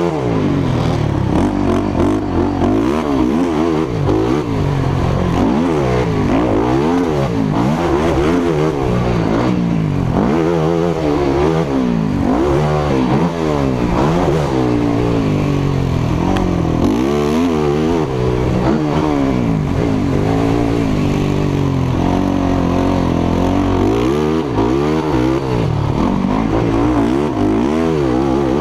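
Racing quad's engine heard close up from a camera mounted on the quad, revving up and falling back over and over as the rider accelerates and backs off around the track.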